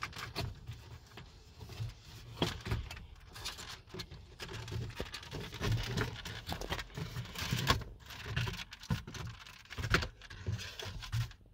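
VW Tiguan Mk2 plastic dashboard trim panel being pulled away from the dash and handled, giving irregular plastic clicks, knocks and scraping.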